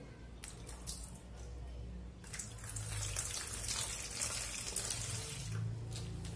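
Water poured from a drinking glass into an empty metal pot, splashing onto the bottom: a few short splashes at first, then a steady pour for about three seconds.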